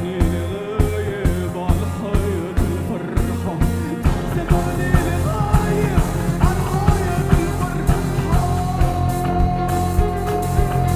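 Music with a steady pulsing beat and a wavering melodic line over it; about four seconds in a heavy bass fills in, and near eight seconds a long held high note enters.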